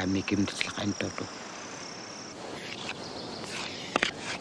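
Cricket-like insect trill, a steady high thin tone that stops about two seconds in, leaving an even outdoor hiss. A single sharp click sounds near the end.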